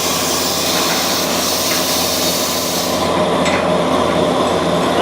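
CNC plasma cutter cutting steel plate: a loud, steady hiss of the arc and air over a low buzz. The high part of the hiss cuts off about three seconds in, with a sharp click shortly after.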